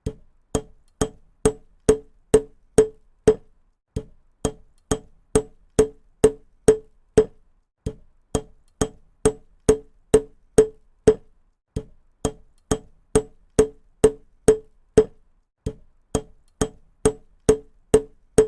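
Hammer striking repeatedly at about two blows a second, each blow a sharp knock with a short ring. The blows come in runs of about eight, with a brief pause between runs every four seconds or so.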